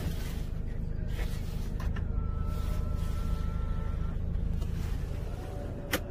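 Hyundai H1 Starex's electric side-mirror motor whining for about two seconds as the mirror glass is adjusted, over the steady low hum of the 2.5-litre turbo-diesel idling. A sharp click near the end.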